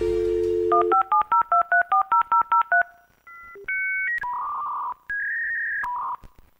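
Dial-up modem dialing out over a phone line. A steady dial tone lasts about a second, then a quick run of about ten touch-tone beeps, then a few longer steady tones at different pitches as the call connects.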